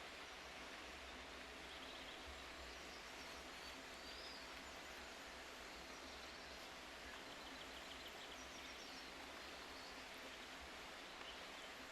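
Quiet outdoor ambience: a steady hiss with faint, short bird chirps now and then.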